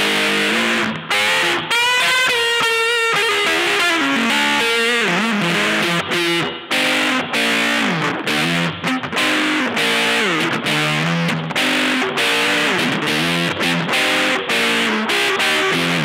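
Electric guitar played freestyle through a board of effects pedals: single notes and short phrases, with a note bent upward about two seconds in.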